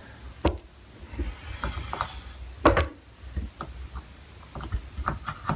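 A power cord being handled and its plug pushed into a wall outlet: a few sharp clicks and knocks, the loudest about two and a half seconds in, over a low steady rumble.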